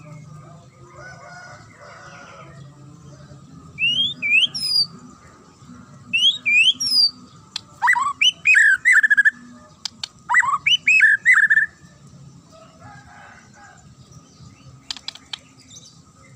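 White-rumped shama (murai batu) singing loud, clear, high-pitched whistled phrases. About four and six seconds in come two quick sweeping whistles, then from about eight seconds in two longer phrases of sharp downward-swooping notes.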